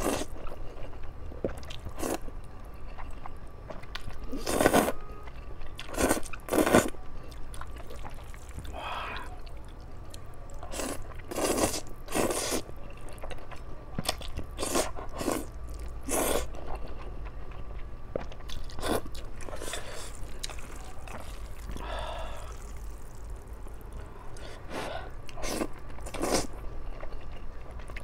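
Close-miked mukbang eating of spicy instant noodles: a person slurps strands of noodles into the mouth in short loud bursts, a second or a few apart, with chewing between.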